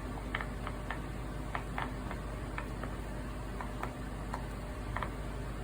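Bubbles of a silicone pop-it fidget toy being pressed through by fingers one after another: about a dozen short, sharp pops at uneven spacing, very loud.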